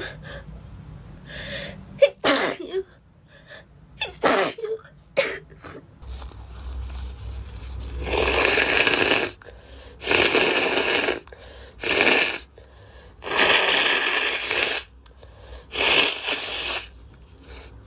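A girl sneezing over and over, about eight times. The first few sneezes are short and sharp; the later ones are longer and noisier.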